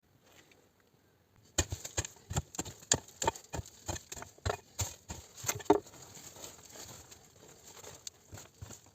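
An irregular series of sharp knocks or taps, about three a second, starting about a second and a half in and tailing off after about six seconds into faint rustling.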